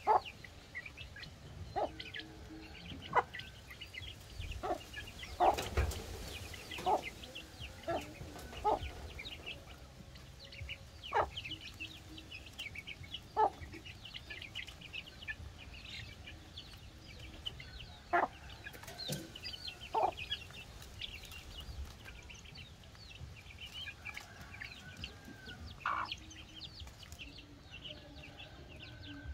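Hen clucking in short, sharp calls every second or two while her chicks peep almost without pause as they feed.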